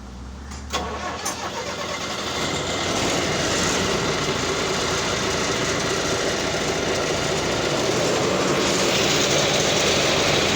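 A road-construction machine's engine starting about a second in, then running steadily, growing louder over the first few seconds.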